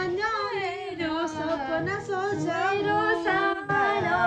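A woman singing a Nepali song unaccompanied, in one continuous melodic line, while wearing earphones: she sings along to music that only she hears, so her own voice is heard bare.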